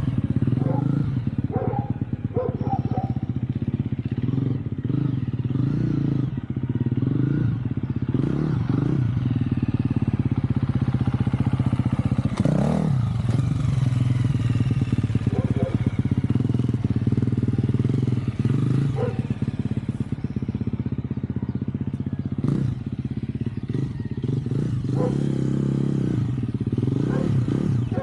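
Husqvarna FE350 four-stroke single-cylinder dirt bike engine chugging at very low revs, with short throttle burps rising and falling. It keeps running without flaming out on an aftermarket GET ECU. Occasional sharp clatters come through over the engine.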